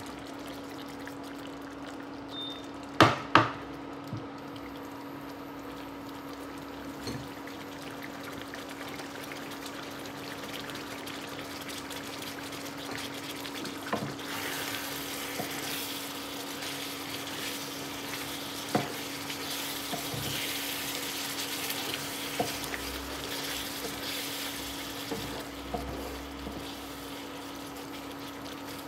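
Thick rendang sauce simmering and sizzling in a nonstick frying pan as a wooden spoon stirs it, the hiss growing louder about halfway through. A few sharp knocks of the spoon on the pan, the loudest two about three seconds in, over a steady low hum.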